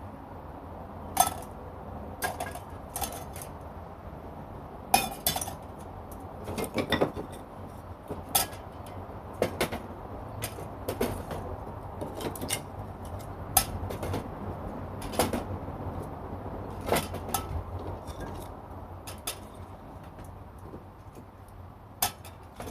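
Light metal parts clinking and tapping together at irregular intervals, about two dozen sharp clinks over a low steady background hum.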